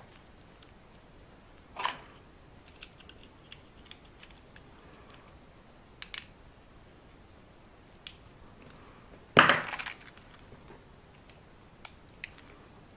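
Small hand tools working on a metal RC differential: scattered light clicks and taps of a screwdriver and tweezers on the metal parts, with one louder clatter of tools about nine and a half seconds in.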